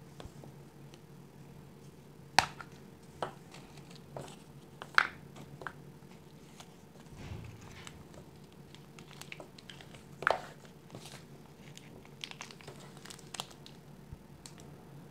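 Hands handling and prying open a clear plastic gachapon capsule: scattered sharp plastic clicks and clacks, the loudest about two and a half, five and ten seconds in, with a faint steady hum underneath.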